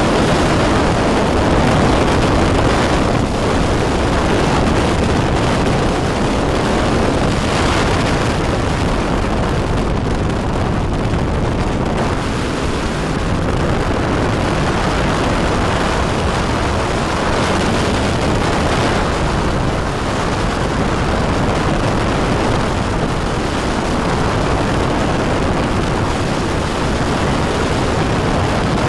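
Steady, loud rush of wind on the microphone mixed with the engine of a weight-shift microlight trike in flight.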